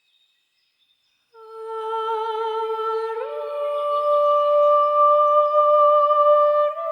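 A woman's voice humming long held notes, starting about a second in: one low note, a step up to a higher note about three seconds in, and a slight further rise near the end.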